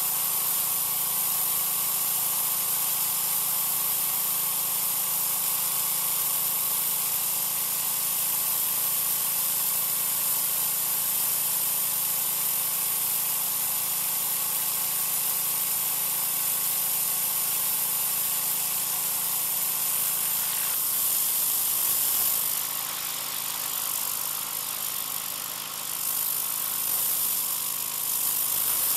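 Troy-Bilt 2200 psi gas pressure washer running steadily, its engine note under the hiss of the high-pressure spray from an oscillating tip on concrete. The sound dips and shifts a few seconds before the end.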